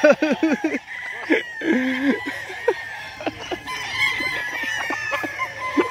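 Gamecocks crowing and clucking: a burst of quick clucks at the start, scattered calls, and a long crow about four seconds in.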